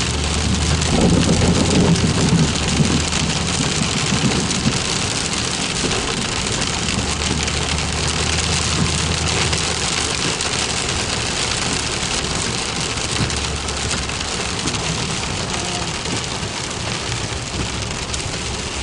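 Heavy rain pouring down steadily in a severe thunderstorm, with a low rumble in the first few seconds.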